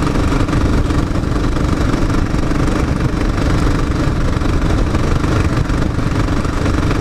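Motorcycle engine running steadily while riding, a constant droning tone over a low rumble and rushing noise.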